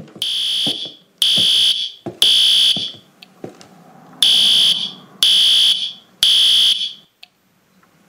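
Fire alarm sounding the evacuation pattern: three loud, high-pitched blasts about a second apart, a pause, then three more.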